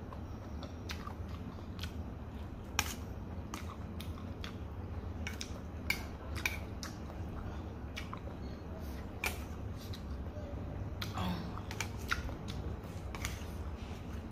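Chewing and mouth sounds of someone eating fried noodles, with scattered short clicks of chopsticks against a stainless steel bowl, over a steady low hum.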